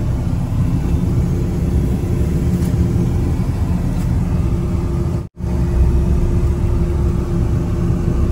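Low, steady rumble of a vehicle running in slow, congested traffic, with a faint steady hum. The sound cuts out abruptly for a split second about five seconds in, then carries on.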